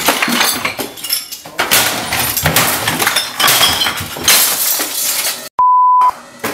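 A person trashing a room: a rapid run of crashes and clatter, with glass breaking and clinking. A short steady beep cuts in near the end.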